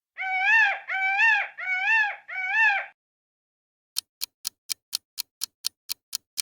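Peacock calling four times in a row, each loud, clear call rising then falling in pitch. About a second after the calls stop, a clock starts ticking at about four ticks a second.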